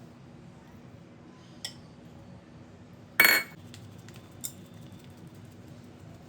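A metal utensil clinking against cookware: a light tap about one and a half seconds in, a loud ringing clink at about three seconds, and another light tap just over a second later.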